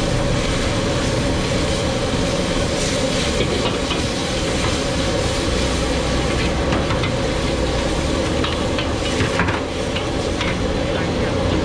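Noodles sizzling in a wok over a gas wok burner, with a steady rush of the flame underneath. A metal ladle scrapes and clinks against the wok throughout as the noodles are stir-fried.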